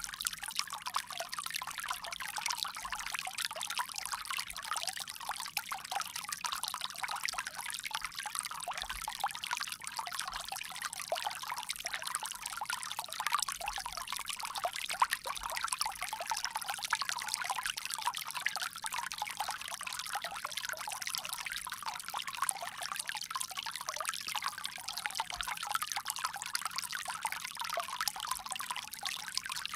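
A steady stream of water pouring and trickling from a bamboo spout, continuous and even.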